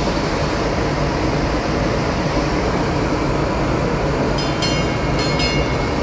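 Panama Canal electric towing locomotive (mule) on its lock-wall track, a steady rumble. Two short clusters of high-pitched ringing tones come about four and a half seconds in and again a second later.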